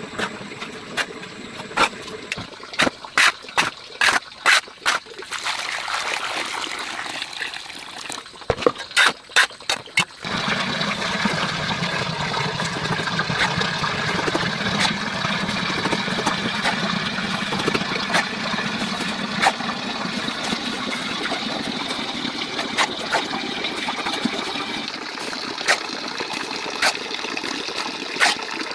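Sharp clicks and knocks for about the first ten seconds, then water running or trickling steadily for the rest, with occasional ticks.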